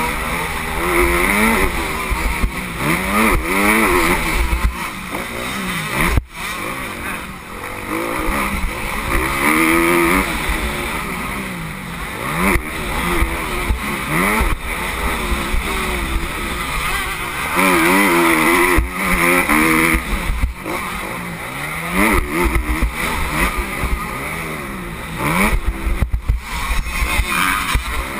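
Motocross bike engine revving hard, its pitch climbing again and again as it accelerates and shifts through the gears, with a brief drop in throttle about six seconds in. Wind buffets the helmet-mounted camera's microphone throughout.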